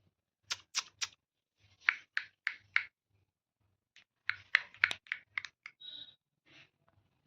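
Parrot making quick sharp clicks in irregular runs of three to five, with a brief high chirp about six seconds in.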